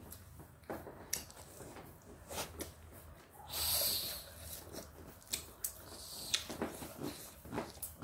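A person eating rice and fried fish by hand, close to the microphone: chewing and lip-smacking with scattered small clicks, and one louder breathy rush about four seconds in.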